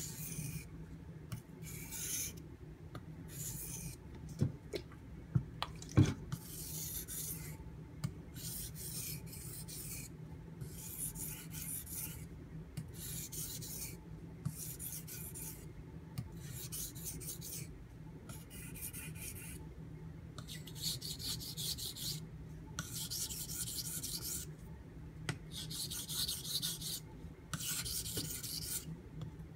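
Knife blade stroked along a Shapton Pro whetstone, a scraping hiss repeated about once a second with short pauses between strokes, as the uneven tanto tip of the AUS-8A steel blade is ground straight. A few sharp knocks come a few seconds in.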